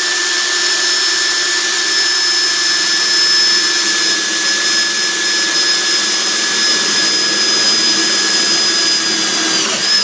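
Cordless drill running at a steady speed with a constant whine as it bores a pilot hole into a steel conduit leg. It grinds on without let-up and stops at the end. The bit is dull: a sharper bit is called for.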